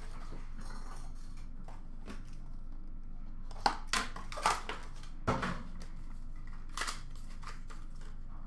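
Packaging of a sealed hockey card box being handled and opened: several short, sharp crinkles and snaps, bunched between about three and a half and seven seconds in, over a steady low room hum.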